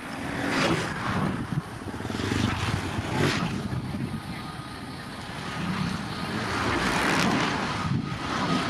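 Airbus A320neo's CFM LEAP-1A turbofan engines running at taxi power as the airliner rolls along the runway, a steady jet rush that swells and fades several times, with a faint whine near the end.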